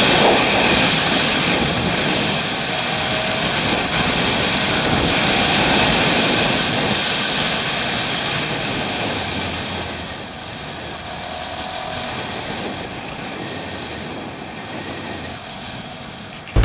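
Wind rushing over a handlebar-mounted camera, with the Yamaha R15's single-cylinder engine running underneath at road speed. The rush eases off over the last several seconds as the motorcycle slows.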